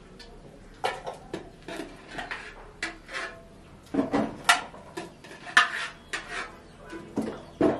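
A metal spoon knocking and scraping against aluminium cooking pots as food is scooped from one pot into another: a series of irregular clinks and scrapes, the loudest a little past the middle.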